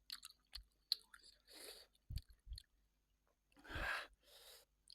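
Close-miked eating sounds: wet mouth clicks and smacks of chewing, with a few short hissing sounds between them.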